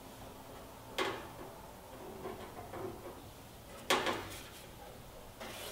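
Two sharp knocks about three seconds apart, with faint rattling and handling noises between, as a sheet-metal patch panel is held and shifted against the steel body of an International Scout II.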